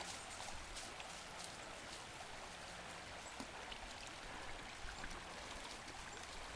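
Shallow river water flowing: a steady, even rush of running water.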